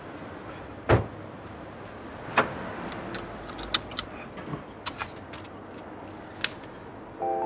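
A convertible's car door pulled shut with a solid thump about a second in. Then come small knocks, sharp clicks and rustles of someone settling into the seat and fastening a seatbelt. Music comes in right at the end.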